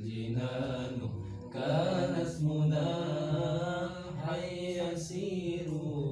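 Sholawat, an Islamic devotional song, chanted in long drawn-out notes that bend slowly in pitch.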